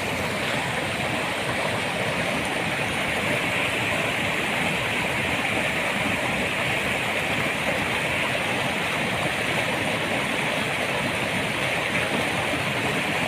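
Steady rush of flowing water, an even unbroken noise with no distinct splashes.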